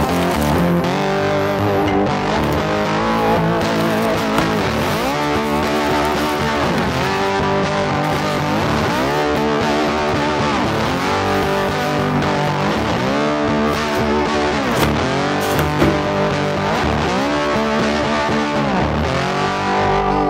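Background music led by a guitar, its notes bending up and down in repeated arching phrases over a steady accompaniment.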